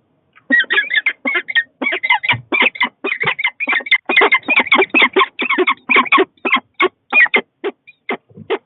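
Goose honking in a rapid, loud run of short cackling calls, about four a second, that thins out to a few separate honks near the end.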